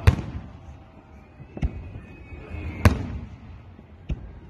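Aerial firework shells bursting overhead: four sharp bangs, roughly one to one and a half seconds apart, each trailing off in an echo.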